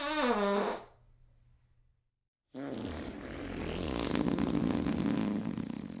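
Fart sound effects. First comes a short fart that falls in pitch. About two seconds later a long, rough, sputtering wet fart follows and lasts nearly four seconds.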